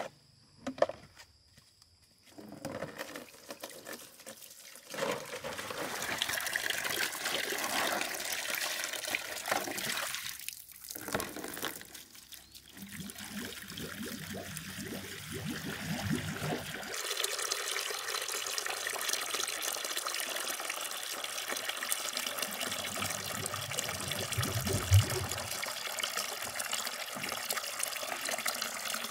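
Water running from a wall tap into a plastic basin on concrete, splashing steadily as the basin fills. Two knocks at the very start as the basin is set down.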